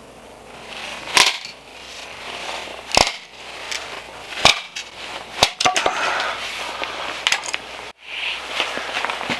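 Aspen firewood being split by hand: sharp chopping strikes about every second and a half, then a run of smaller cracks and knocks of wood.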